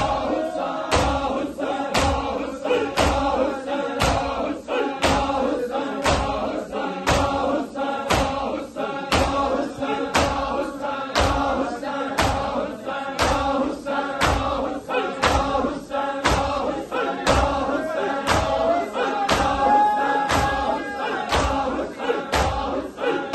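A large crowd of men doing matam, striking their bare chests with their hands in unison about twice a second, while a chanted Muharram lament (nauha) runs steadily over the beat.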